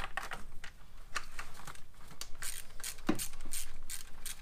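Hand ratchet clicking in short, irregular runs as the intake manifold bolts on a BMW N52 engine are tightened by hand, with a heavier knock about three seconds in.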